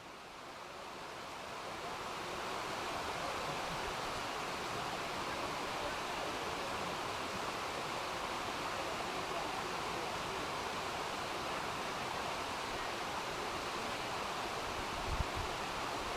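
Waterfall rushing, a steady, even wash of falling water that swells over the first couple of seconds and then holds.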